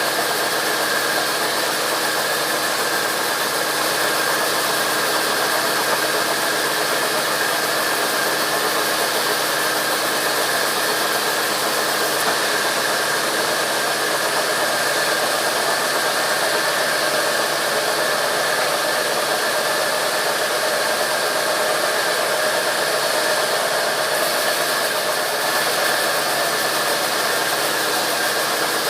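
Sawmill machinery running steadily: a constant loud rush of noise with an unchanging high whine.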